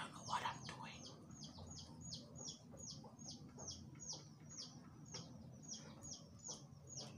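A bird calling a fast run of short, high chirps that each sweep downward, about three or four a second, with a brief rustle about half a second in.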